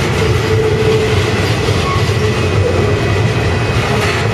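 Union Pacific double-stack container train's well cars rolling past close by: steel wheels running on the rails with a steady, loud noise.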